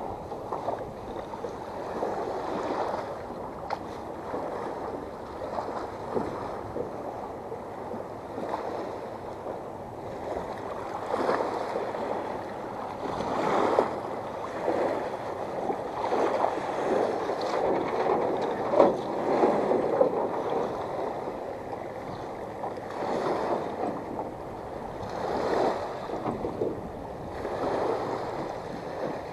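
Small lake waves washing onto a rocky shore and splashing, surging irregularly every couple of seconds.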